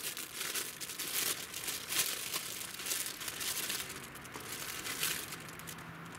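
Plastic bag of bean sprouts crinkling and rustling as it is handled and the sprouts are emptied into a frying pan. The crinkling is busiest in the first four seconds, then thins out.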